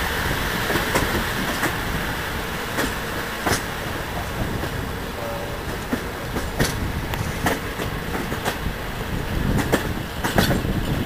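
Passenger train carriage running along the track, heard from the carriage window: a steady rumble with irregular sharp clacks of the wheels over the rails.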